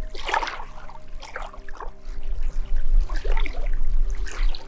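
Water splashing and trickling in irregular bursts, over soft sustained background music.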